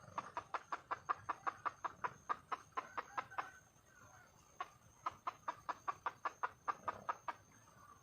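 Red junglefowl hen giving rapid clucking calls, about six a second, in two runs with a single cluck between them. This is the wild hen's call for a mate, which draws a rooster.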